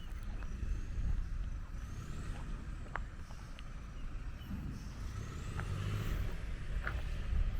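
WOLF JX45H backhoe loader's engine running steadily with a low rumble, with a few short clicks.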